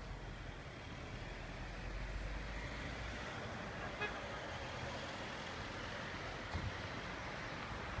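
Distant road traffic: a steady wash of passing vehicles that swells slightly about two seconds in, with a faint click about four seconds in and a soft knock a little later.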